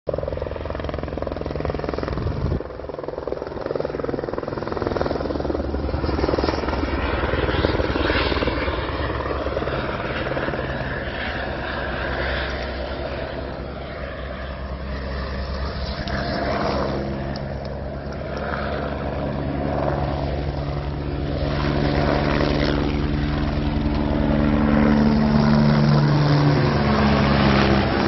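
Engine drone, steady throughout, with a low humming tone that swells louder over the last few seconds while its pitch glides.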